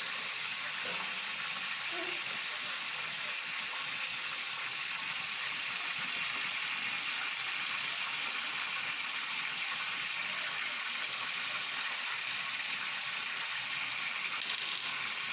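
Steady, even hiss of food cooking on the stove, from a pot of water boiling with rice in it or a pan of frying brinjal.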